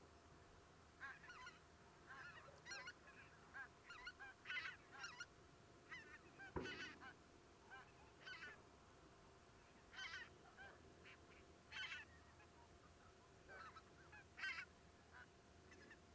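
Distant birds calling: many short calls in irregular groups over a faint, low steady background, with a single sharp knock a little past halfway.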